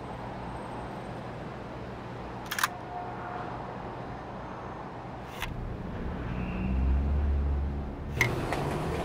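Three camera shutter clicks, about three seconds apart, over a steady low city hum. A low rumble swells and fades about six to eight seconds in.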